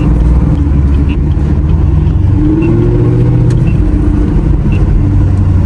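Chevrolet Camaro 2SS V8 engine pulling steadily under acceleration, its pitch rising a little about halfway through, heard from inside the cabin. Faint short beeps sound about once a second over it.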